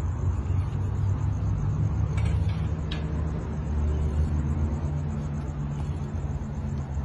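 Steady low rumble with a faint hum, and a few brief faint clicks between about two and three seconds in.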